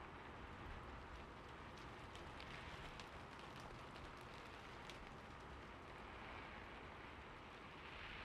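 Faint, steady splash and trickle of falling water, with a few soft drips.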